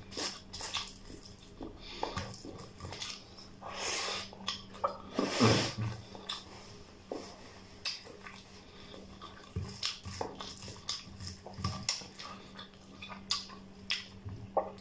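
Close-up eating sounds: wet chewing and lip-smacking of rice and mutton curry eaten by hand, in irregular clicks and smacks with a few louder bursts. A faint steady hum runs underneath.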